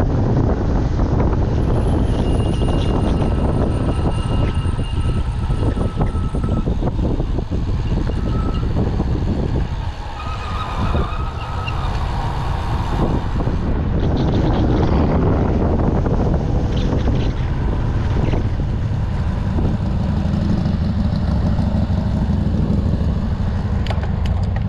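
Wind buffeting the microphone on a fast road-bike descent, a loud steady rumble. Brief thin whistling tones come and go over it.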